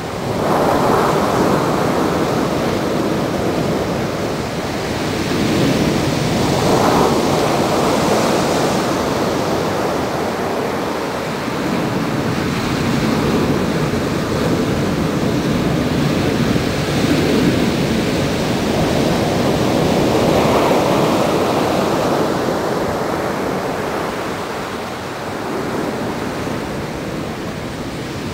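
Large Pacific Ocean waves breaking and surf washing up the shore in a steady rushing roar that swells and eases every few seconds as each wave comes in.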